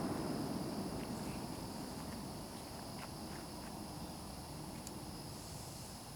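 A consumer firework's noise dies away after its launch, with a few faint scattered pops and crackles. A steady faint high-pitched hiss runs underneath.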